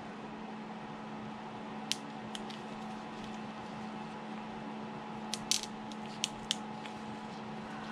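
Small snips cutting thin supports off a fresh, uncured resin 3D print: a few short, sharp clicks, two around two seconds in and a quick cluster of about five in the second half. A steady low hum runs underneath.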